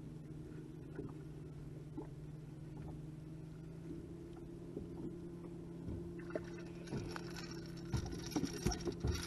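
A steady low hum throughout. Near the end, several sharp thumps as a freshly landed fish flops on the boat's carpeted deck.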